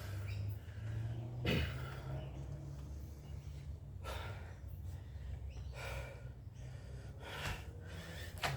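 A person breathing hard, with loud rushing breaths every couple of seconds over a low steady hum.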